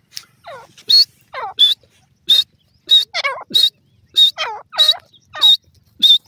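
Francolins (teetar) calling: a run of short, sharp high notes about every 0.6 seconds, with lower calls between them that slide downward.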